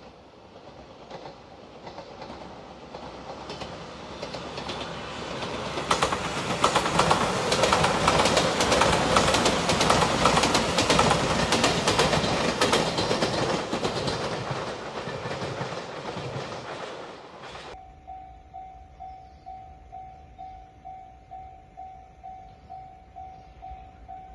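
Limited express train approaching and passing close by, growing louder over several seconds, then running past with a rapid clatter of wheels over rail joints before fading away. After a sudden cut, a railway level-crossing warning bell rings steadily at about two strikes a second.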